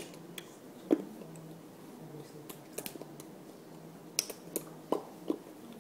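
Scattered sharp clicks and smacks from a person signing silently: hands meeting each other and the body, and lip and mouth noises. The loudest comes about a second in, and a quick cluster of four or five follows near the end, over a faint steady low hum.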